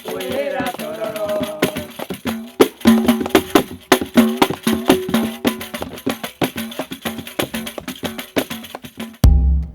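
Music: a singing voice over shaken rattle and hand percussion in a quick, steady rhythm. The singing fades after the first second or so, leaving the percussion and a held low note, and a deep thump near the end cuts it off suddenly.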